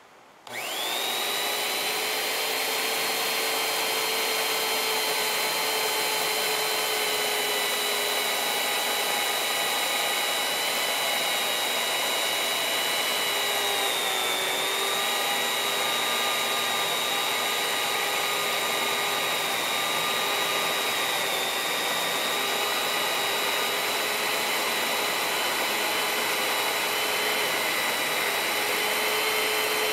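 Corded worm-drive Skilsaw circular saw fitted with a Prazi Beam Cutter chainsaw bar, starting about half a second in and running steadily with a high whine as its chain cuts at a 45-degree angle through a timber beam. Its pitch dips briefly about halfway through.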